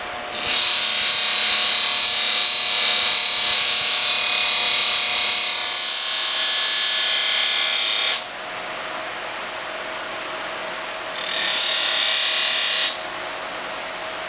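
Two bursts of harsh abrasive hiss over a steady machine hum: a steel broadhead being worked on an abrasive machine. The first burst lasts about eight seconds and the second under two seconds.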